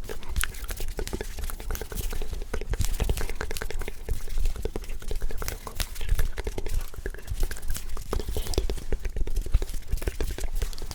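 Close-miked ASMR hand sounds: dense, irregular crackling rubs and taps, with unintelligible whispering.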